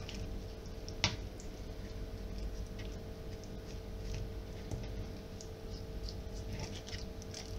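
Raw chicken leg quarter being skinned by hand with a small knife: faint wet squelches and light ticks as the skin is pulled and cut away, with one sharp click about a second in. A faint steady hum lies underneath.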